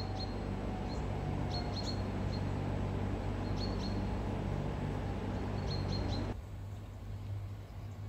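A small bird chirping in short, high calls every second or two over steady low background noise. About six seconds in, the sound cuts off abruptly to a quieter ambience.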